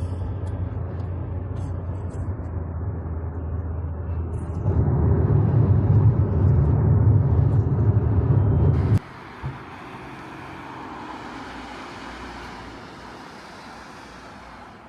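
Steady low rumble of a moving vehicle, growing louder about four and a half seconds in. About nine seconds in it cuts off abruptly, giving way to a quieter, steady rushing hiss.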